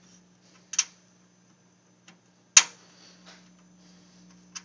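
Sharp clicks and light knocks of a thumb screw and the metal indexing fixture being handled and fitted onto the SRM-20 milling machine's bed, with a strong click under a second in and the loudest about two and a half seconds in. A steady low hum runs underneath.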